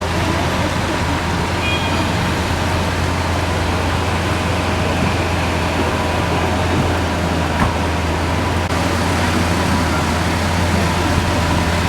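Lamborghini engine idling, a constant low hum that holds steady with no revs, over an even hiss of wet street and traffic noise.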